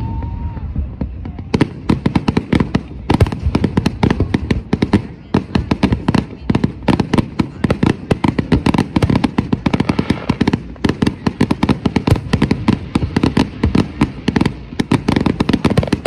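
Aerial fireworks shells bursting in rapid succession, several sharp bangs a second. About two seconds in they thicken into a near-continuous barrage of overlapping booms.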